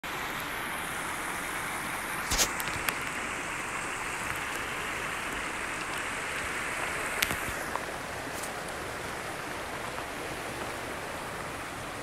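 Steady rushing of water from a small creek waterfall, with a few sharp clicks about two and a half and seven seconds in.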